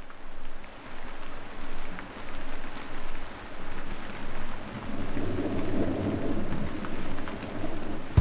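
Noisy, rain-like wash opening a rock song, swelling and fading about once a second, with a low rumble building over the last few seconds before the drum kit comes in.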